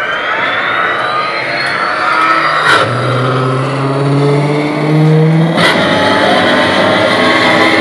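Sci-fi vehicle sound effects played over the robot's speaker system: a rising power-up whine, then about three seconds in an engine revving and stepping up in pitch. After a sharp click near the six-second mark it gives way to a steady jet-like rushing.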